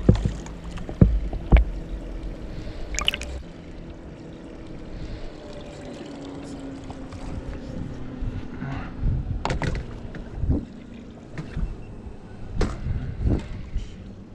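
Knocks and bumps of fishing gear against a boat, with water trickling and a faint steady hum that slowly drops in pitch. The sharpest knocks come right at the start and again about a second in.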